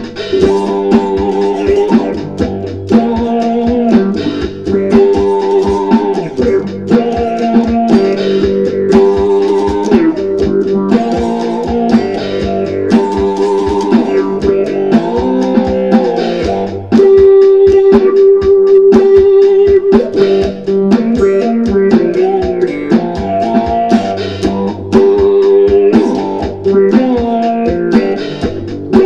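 Electric three-string cigar box guitar played through an auto-wah envelope filter: a funky picked riff whose tone sweeps open and shut on each note. It gets louder a little past halfway.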